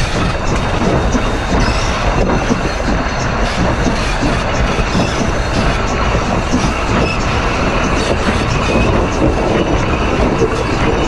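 Steel driving wheels of the narrow-gauge steam locomotive D&RGW 491 rolling on the rail through a constant curve, heard close at the wheel: a steady rolling rumble with faint high squealing tones and occasional clicks from wheel and flange against the rail.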